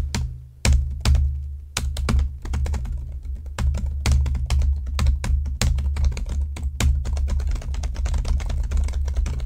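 Typing on a computer keyboard: runs of quick, sharp key clicks, irregular in pace, with low background music underneath.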